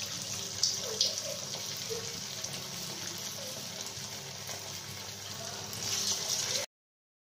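Battered chicken pakora deep-frying in hot oil in a kadai: a steady sizzling hiss with a few small pops. It swells near the end and then cuts off suddenly.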